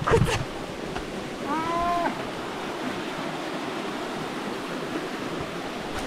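A foot squelching down into deep, wet trail mud at the start, then a brief drawn-out vocal cry about a second and a half in, over a steady rushing sound of flowing water.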